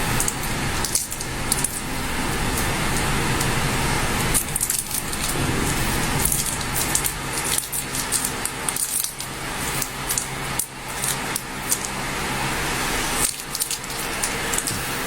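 Small clicks, taps and rattles of an object being handled, over a steady background hum.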